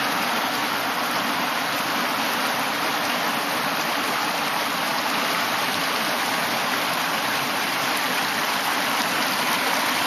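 Shallow snowmelt-fed mountain river running fast over stones and cobbles: a steady, even rush of water.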